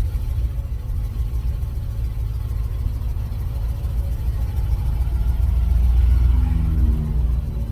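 1970 GMC pickup driving, heard from inside the cab: a steady low engine and road rumble. Near the end the engine note shifts in pitch.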